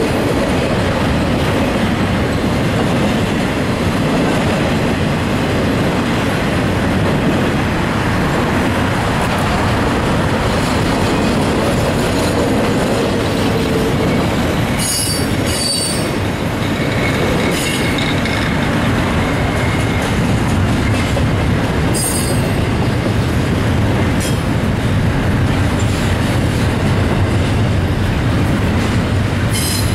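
Union Pacific intermodal freight train's double-stack container cars rolling past: a steady, loud rumble of steel wheels on rail, with brief high-pitched wheel squeals a few times, around halfway through and again a little later.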